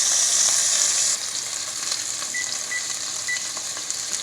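Chicken thighs frying in hot grapeseed oil in a skillet, a steady sizzle with small pops. The sizzle is louder for about the first second, then drops to a quieter level.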